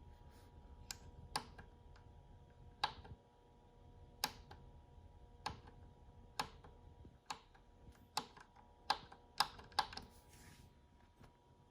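Schiit Gungnir Multibit DAC switched on with no source connected, giving off a faint steady hum heard as a couple of constant tones; the owner is unsure whether it is a burn-in effect or a fault. About a dozen irregular sharp clicks sound over it, several close together near the end.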